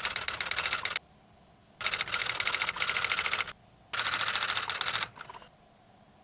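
Typewriter typing sound effect: three runs of rapid key clicks, with short pauses about a second in and again around three and a half seconds in, ending with a few scattered clicks.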